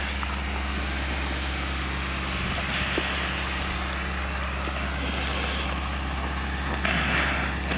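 Steady low motor rumble, with soft scraping as a plastic spoon stirs a small amount of liquid in a paper bowl, a little louder about three seconds in and again near the end.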